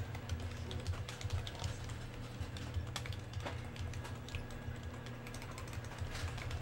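Typing on a computer keyboard: quick, irregular key clicks, over a steady low electrical hum.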